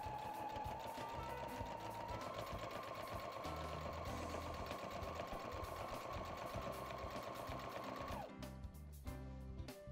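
Electric domestic sewing machine stitching a seam through thick plush fabric layers. Its motor whine steps up a little in speed about two seconds in, runs steadily, and stops about eight seconds in.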